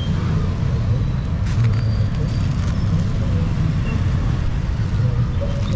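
Steady low rumble of street background noise, such as passing traffic, with faint voices.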